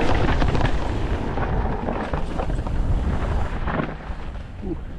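Trek Slash mountain bike riding fast downhill on a bike-park trail: a heavy wind rumble on the microphone over tyre noise on dirt, with many small clicks and rattles from the chain and frame. The rush eases near the end.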